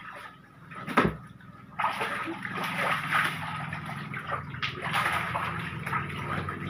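Shallow water sloshing and splashing in a tarp-lined fish holding pond as a man wades through it and snakehead fish thrash. There is a thump about a second in, and the splashing sets in just under two seconds in, over a low steady hum.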